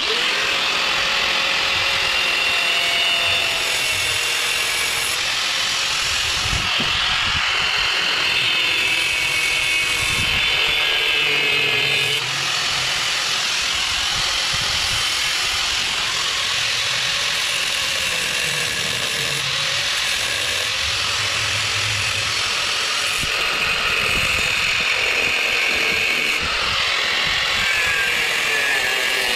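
Corded angle grinder with a flap disc grinding the star points off a steel lawn mower blade adapter, running continuously. Its motor whine wavers in pitch as the disc is pressed into the metal.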